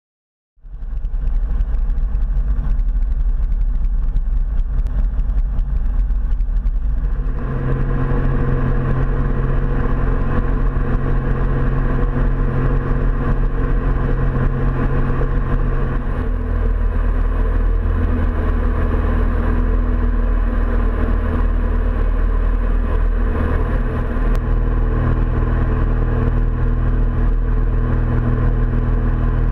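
Single-engine light aircraft's engine and propeller heard from the cockpit: a steady drone that rises to takeoff power about seven seconds in for the takeoff roll and climb. Its tone shifts twice as the climb goes on.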